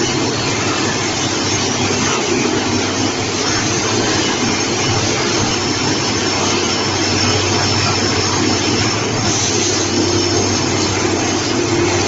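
Rebar straightening and cutting machine running steadily, its straightening drum spinning with a continuous mechanical hum and dense hiss; about nine seconds in the sound turns brighter and the hum strengthens.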